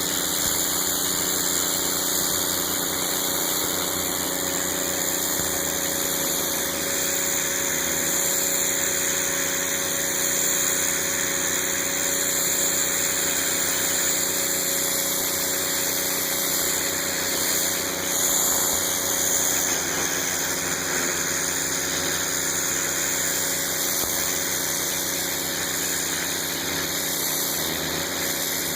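Northstar pressure washer's 9 hp Honda GX single-cylinder petrol engine running steadily under load, with the steady hiss of the high-pressure spray.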